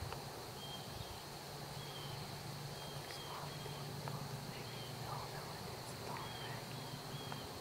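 Quiet field ambience: short high chirps repeating irregularly, about one a second, over a faint steady high whine.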